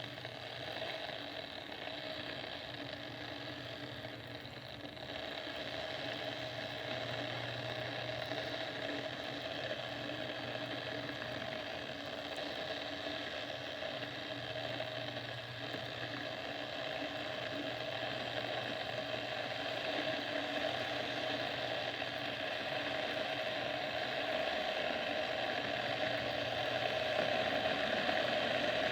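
Electric kettle heating water, a steady hiss and rumble that slowly grows louder as the water rises toward the boil.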